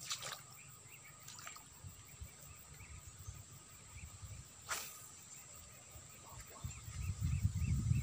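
Quiet pond-side ambience with a steady high-pitched insect drone and faint repeated chirps, one sharp click near the middle, and a low buffeting rumble on the microphone from near the end.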